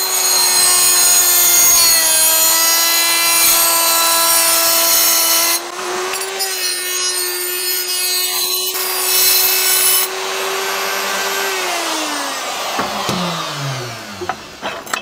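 Small hand-held rotary grinder running at a steady high whine while grinding and deburring the inside edge of a freshly cut steel tube, with rasping grinding noise that comes and goes. About three-quarters of the way through it is switched off and its pitch falls as it spins down.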